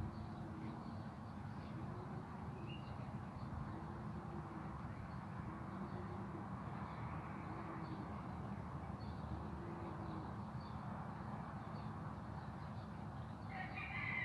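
Steady low background noise with a faint low call repeated every second or two, and a louder bird call with falling notes near the end.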